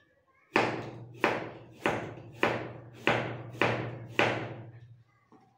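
Chef's knife chopping a carrot on a plastic cutting board: seven sharp, evenly paced knocks a little over half a second apart, over a faint steady low hum.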